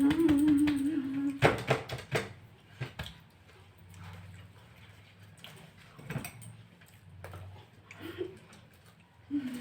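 A person's voice holding a steady hum for about a second and a half, then a few sharp clinks and knocks of tableware while people eat, with quieter scattered handling sounds afterwards.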